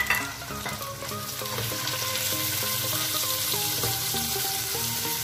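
Raw chicken mince sizzling in hot oil with fried onion in a nonstick wok while a silicone spatula stirs it around the pan, with a sharp knock right at the start.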